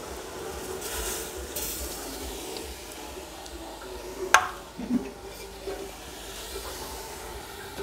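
Omena (small Lake Victoria sardines) with a little water cooking in a metal pot over an open wood fire, giving a steady low sizzle. A sharp click comes about four seconds in, with a softer knock just after.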